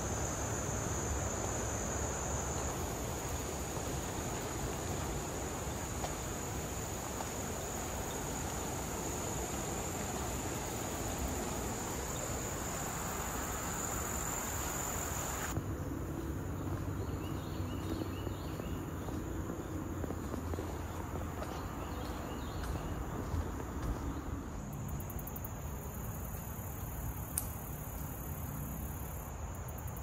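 A steady, high-pitched chorus of insects droning over a low rumble. The chorus grows fainter about halfway through.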